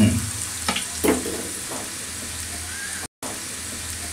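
Freshly added chicken wontons deep-frying in oil in a pan, with steady sizzling and bubbling as the raw filling cooks. A wire skimmer knocks lightly a few times in the first second or so, and the sizzle drops out for an instant about three seconds in.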